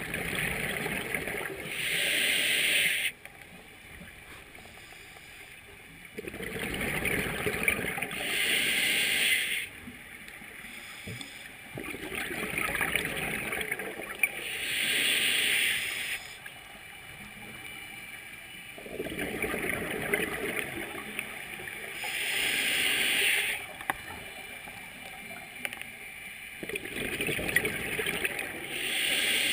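Scuba diver breathing through a regulator underwater: a burst of exhaled bubbles, then a short hiss of the inhale, then a pause, repeating about every six to seven seconds, five times.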